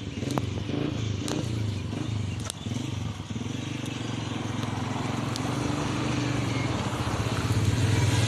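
A small engine or motor running steadily, growing louder toward the end, with a few sharp clicks over it.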